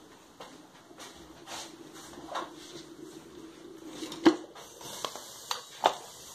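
Metal pot lids and pans being handled on a stove: a run of clinks and knocks, the loudest about four seconds in and another sharp one near the end, over a low steady hum.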